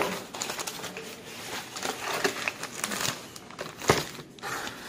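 Cardboard box and phone-case packaging being handled, rustling and crinkling with small clicks. There is a sharp knock right at the start and another about four seconds in.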